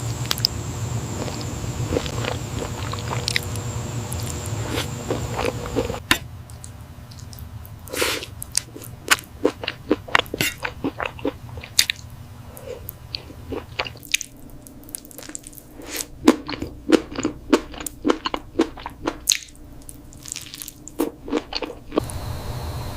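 Close-miked eating of chewy octopus: biting and chewing with many sharp wet clicks and smacks. A steady hum with a faint high whine lies under the first six seconds, then drops away.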